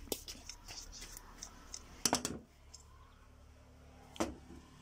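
Small metallic clicks and taps as a Honda Dio scooter carburetor and its small parts are handled by hand, with a sharper clatter about two seconds in and one more click near the end.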